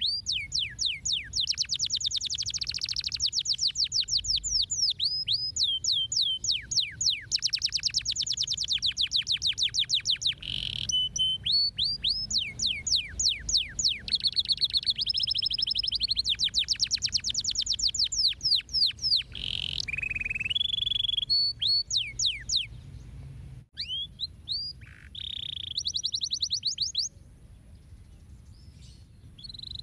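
Domestic canary singing: long, fast trills of falling whistled notes, changing from one roll to the next at different speeds, with a pause of a couple of seconds near the end.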